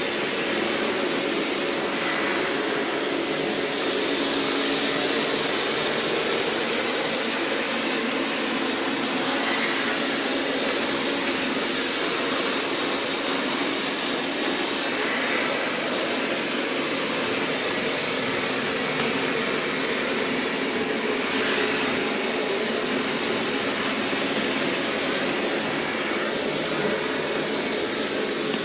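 Roborock S6 MaxV robot vacuum running steadily: its suction fan and brushes work along the edge of a hard floor, picking up quartz sand.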